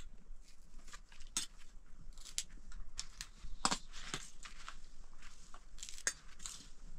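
Scattered light clicks, taps and short scrapes of plates, a serving spoon and food being handled.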